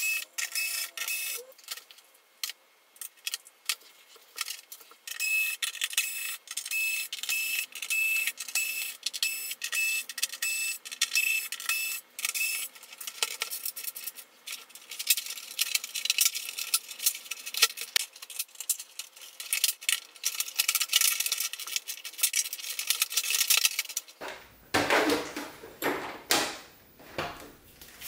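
Time-lapse teardown sounds, sped up into a fast, high clatter: a cordless screwdriver backing screws out of a plastic TV back cover, and the screws and plastic clicking and rattling in the hands. Near the end come heavier knocks as the cover is handled and lifted.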